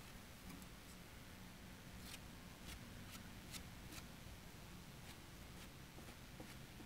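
Faint scraping of a plastic spreader smoothing wet filler along the joint between a plywood base and a fiberglass hull, with a handful of soft clicks between about two and four seconds in, over near-silent room tone.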